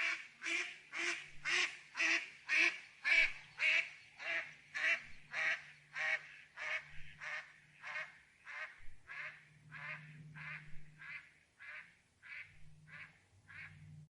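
Waterfowl calling: a long, regular series of calls, about two a second, that grow gradually fainter and cut off near the end.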